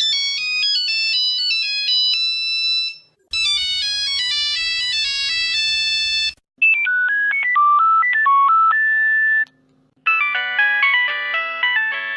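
Successive versions of a Nokia mobile phone ringtone: four short melodies of about three seconds each, separated by brief gaps, each ending on a held note. The third is a plain single-note beeping tune; the others are fuller versions with several notes sounding together.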